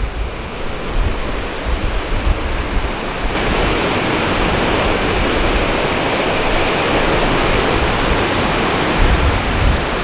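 Mountain stream (Tar Deresi) rushing over boulders: a steady whitewater rush that grows louder about three seconds in.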